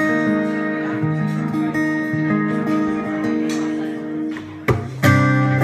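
Acoustic guitar picked in a slow song's opening, single notes ringing over one another, then a louder strummed chord about five seconds in.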